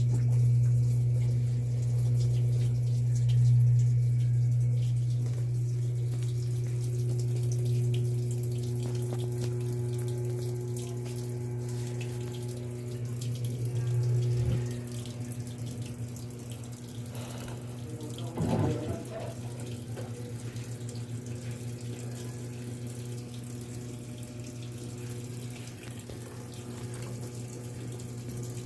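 Sharp automatic washing machine with water running into it, under a steady electrical hum. The water is louder in the first half. There is a brief louder noise about two-thirds of the way in.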